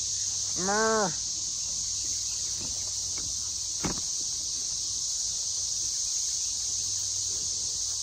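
Steady, high-pitched chorus of cicadas. About a second in, a short pitched call rises and falls, and a single click comes at about four seconds.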